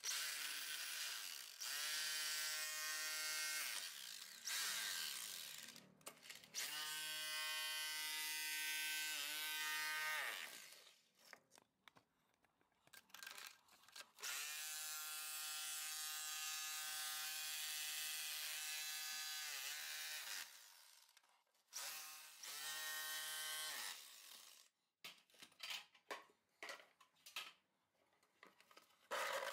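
Electric hammer drill fitted with a chisel bit chipping out brick and mortar. It runs in several bursts of a few seconds each, the motor spinning up at each start and winding down at each stop, with a string of short stabs on the trigger near the end.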